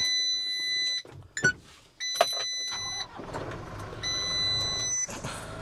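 Truck dashboard warning buzzer beeping in one-second beeps about once every two seconds, with a couple of clicks. A little under three seconds in, the truck's diesel engine is cranked and starts, running on at a low rumble.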